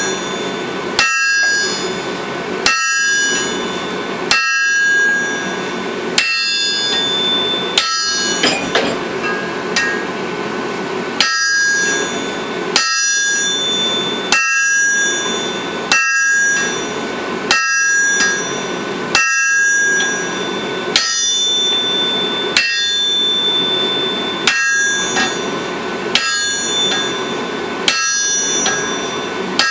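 Striker's hammer blows on red-hot steel held on an anvil, in a steady rhythm of about one blow every second and a half, each leaving the anvil ringing. The blows stop for a few seconds about eight seconds in, then resume.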